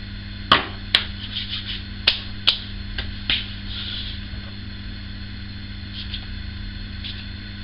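About five sharp clicks and knocks in the first few seconds as small glass aftershave bottles and their caps are handled, then a few faint handling sounds, over a steady low electrical hum.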